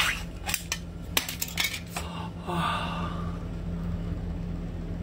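Ring-pull tin can lid being pulled open: a run of sharp metal clicks and creaks over the first two seconds, then a brief scrape.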